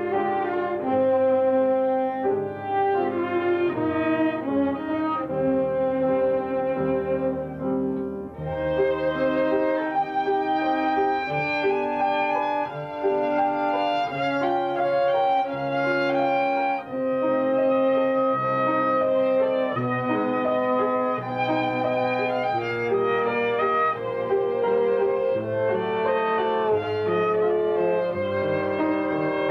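Violin bowed in a flowing melody of held and moving notes, with a lower accompaniment sounding beneath it.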